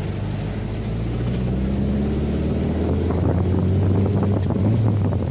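Air-cooled flat-four engine of a 1968 VW Fusca (Beetle) pulling as the car drives, its note slowly rising in pitch and loudness, then easing slightly near the end.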